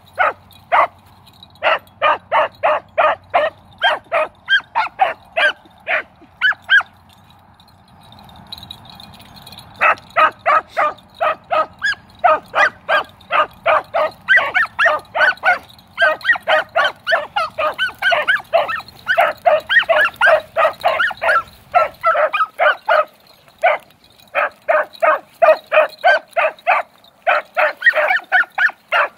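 Beagles giving chop mouth on a rabbit's scent trail: a long run of short, quick barks, about three a second, breaking off for a few seconds near the middle and then picking up again. The steady voicing is the sign that the hounds are on the track.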